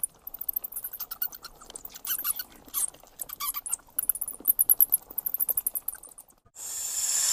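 Bats squeaking and chittering: quick, irregular runs of short, very high-pitched chirps. About six and a half seconds in they stop, and a steady hiss begins.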